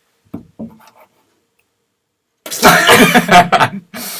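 A person coughing hard, a loud rough burst about two and a half seconds in, followed by a shorter cough near the end.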